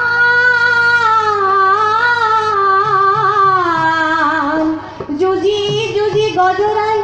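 Dihanaam, Assamese devotional singing: one high voice draws out a long, wavering melodic line over a low steady drone, breaks off briefly about five seconds in, then starts the next phrase. A few soft low drum strokes fall in the second half.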